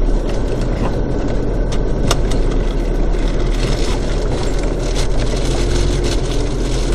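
Four-wheel-drive vehicle's engine running steadily as it climbs a rutted dirt track, heard from inside the cabin, with scattered knocks and rattles as it goes over bumps. A steady tone joins in about five and a half seconds in.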